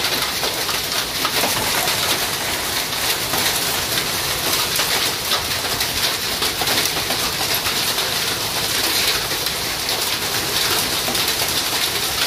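Heavy rain pouring steadily onto a muddy yard and corrugated sheet-metal roofs, a dense even hiss.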